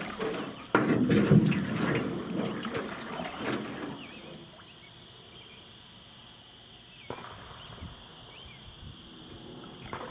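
Water rushing and splashing from a homemade fountain, dropping to a much quieter trickle about four seconds in and picking up again near the end.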